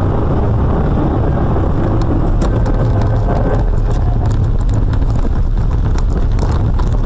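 Car cabin rumble at speed on a wet road. From about two seconds in, a growing clatter of short knocks and rattles comes in as the car swerves and runs off the road onto rough ground.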